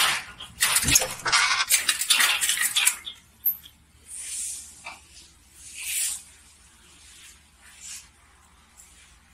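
Rustling and handling noise of a phone being picked up and moved about, dense with scrapes and clicks for the first three seconds. Then come a few softer swishes.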